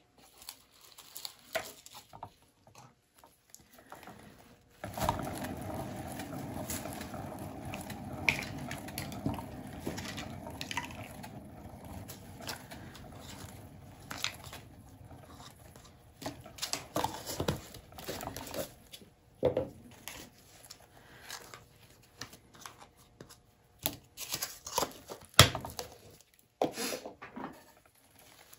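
A paint-pouring turntable spinning, its bearing rumbling steadily from about five seconds in for about ten seconds, then scattered knocks and taps as it is handled.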